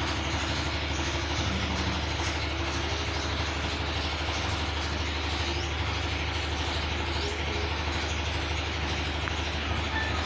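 A steady low mechanical rumble under a constant hiss, like an engine running nearby, holding at an even level.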